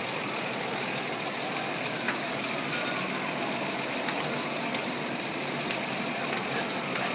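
Steady din of fire engines running at a structure fire, with a handful of sharp cracks from the burning apartment building a second or so apart.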